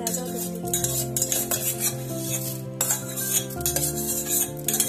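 Whole masoor dal being stirred in an aluminium pressure cooker, with scraping and clinking against the metal pot, over background music with held chords.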